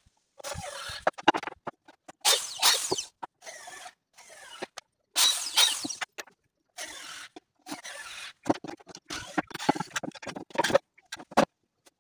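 Corded electric drill working into pine boards in a series of short bursts, each about a second long, with brief pauses between them.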